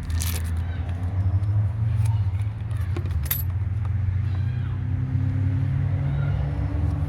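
Sun Joe electric pressure washer running with a steady low hum, with a few brief clicks or rattles.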